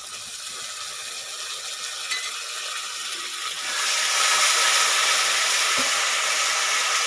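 Spice paste frying in a hot kadai, sizzling as sour curd (yogurt) is poured in. About four seconds in, the sizzling grows louder and steadier as the curd is stirred into the masala with a metal spatula.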